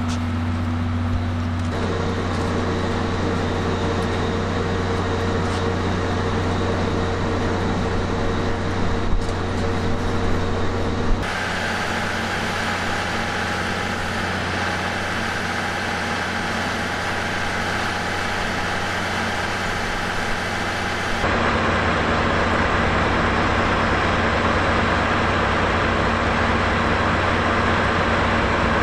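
Steady rumble and hum of a train, with a few fixed tones over a noise bed. It changes abruptly about 2, 11 and 21 seconds in, and a few short knocks come around the tenth second.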